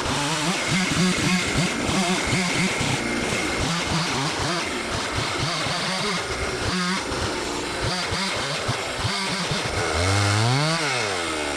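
Gas chainsaw ripping a log lengthwise, its engine held under load with the pitch wavering as the bar sweeps back and forth through the cut. Near the end the engine rises in pitch and falls back.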